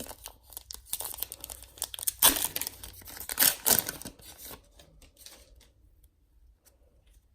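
A trading-card pack wrapper being torn open and crinkled: a run of rustling and tearing for about four and a half seconds. It then fades to a few faint clicks and light handling as the cards come out.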